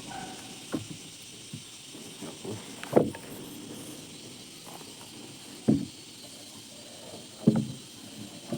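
Scattered short knocks, about five over several seconds, with no saw running, over a faint steady high insect-like hum.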